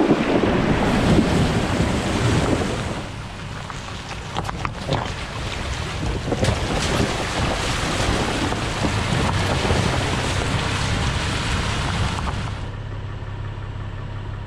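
A vehicle fording a shallow creek: its tyres push through and splash the water in a continuous rushing wash. Near the end the splashing stops suddenly and only a quieter low hum remains.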